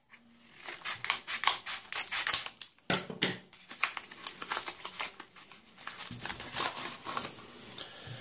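Scissors cutting through the end of a padded paper mailer, then the envelope's paper crinkling and rustling in a run of quick crackles as it is opened and its contents pulled out.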